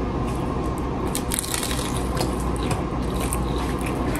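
Chewing and crunching of crisp hard-shell tacos, close to the microphone: a run of irregular crackles, thickest about a second in.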